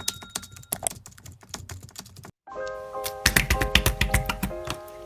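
Rapid, irregular light clicks and taps for about two seconds, then a brief cut, after which background music with sustained notes starts, still overlaid with sharp clicks.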